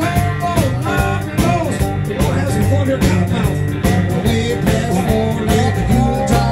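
Live blues band playing: a lead electric guitar solo with bent notes over bass and drums.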